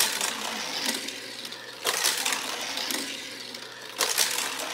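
Die-cast toy cars rolling and rattling along a plastic race track in three rushes, each starting with a sharp knock and fading away.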